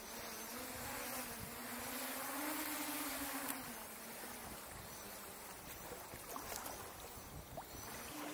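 Quadcopter drone's propellers buzzing, the pitch rising about two seconds in and dropping back a little after the middle, over a steady hiss.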